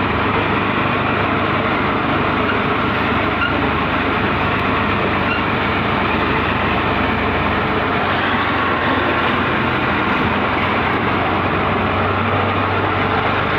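Steady, loud vehicle noise on the move: an even rushing hiss with a low hum underneath that does not let up.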